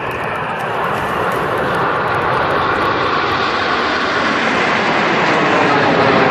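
Jet engines of a formation of Aermacchi MB-339 display jets passing overhead: a steady rushing noise that grows slowly louder.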